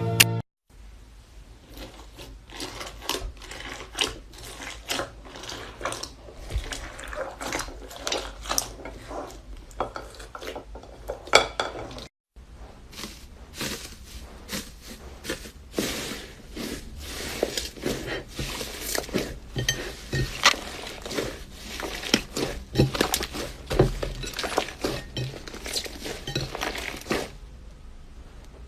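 Slime being squeezed and pressed by hand, giving a dense, irregular string of sharp crackling clicks and pops. It stops briefly about twelve seconds in, then goes on.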